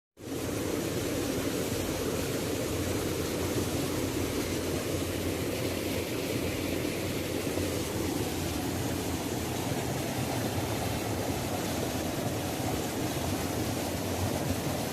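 Waterfall, a steady rush of falling water, starting abruptly right after a brief silence.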